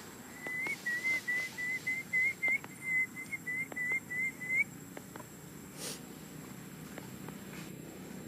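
A run of about fourteen short whistled notes at one pitch, roughly three a second, each bending up slightly at its end; the run stops about four and a half seconds in.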